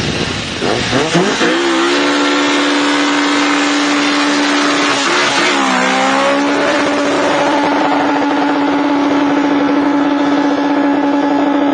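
Honda car engine revved up hard and held at high revs, with a short dip and climb again about six seconds in, over a steady rushing hiss.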